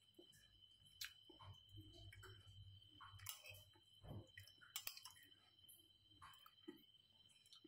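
Faint chewing of a mouthful of rice, with a few sharp clicks of a metal spoon against a glass plate as more rice is scooped, two of them close together past the middle.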